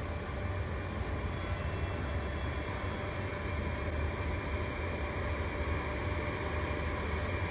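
Hot-air blowers of a WDS-580 BGA rework station running steadily during a heating cycle: an even rushing noise over a low hum.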